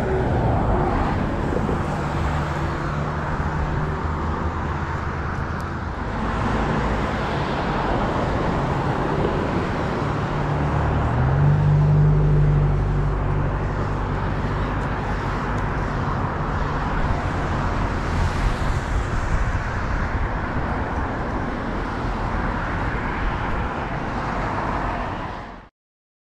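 Steady outdoor road-traffic noise with a low engine hum, swelling about halfway through, then cutting off suddenly near the end.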